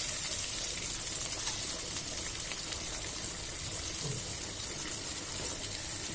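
Butter sizzling steadily in a frying pan with tomato slices and green chillies frying in it.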